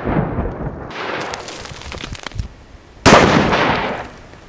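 Tannerite packed in a watermelon detonating when hit by a .308 rifle shot: the echoing rumble of one blast dies away, scattered crackles follow, then a second sudden loud blast about three seconds in fades out over about a second.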